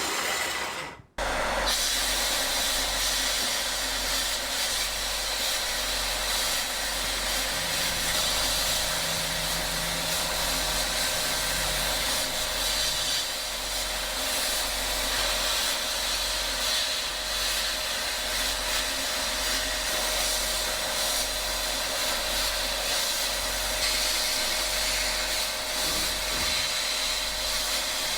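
A power tool running steadily, with a brief cut-off about a second in.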